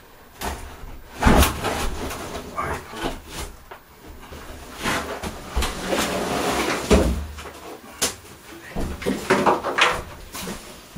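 Fiberglass bathtub being tipped up and manoeuvred out of its alcove: hollow knocks and thumps as it hits the walls and floor, with a stretch of scraping and rubbing. The sharpest knocks come about a second in and around seven seconds in.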